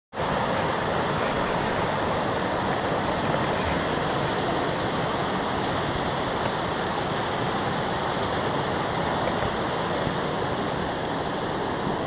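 Small mountain creek cascading over rocks: a steady rush of water.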